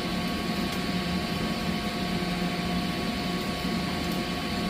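Steady mechanical hum of boiler-room equipment, an even drone with a few constant tones and no breaks.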